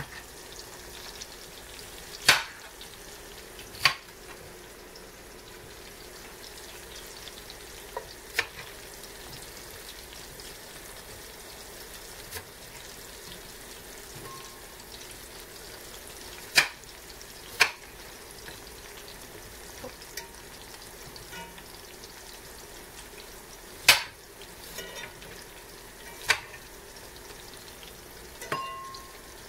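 Cornmeal-breaded catfish nuggets deep-frying in soybean-and-peanut oil in a cast iron skillet: a steady sizzle. Several sharp clinks of a fork against the pan as the pieces are turned.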